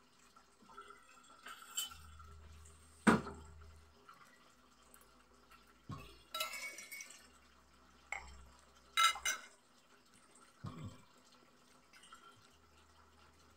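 Metal fork and spoon clinking and scraping against a ceramic plate: about half a dozen separate clinks a second or two apart, the sharpest about three seconds in, with short rattling scrapes around the middle.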